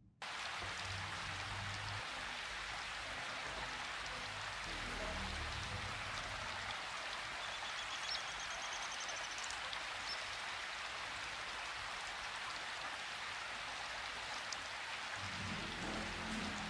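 A steady, even hiss like heavy rain falling, unchanged throughout after starting abruptly.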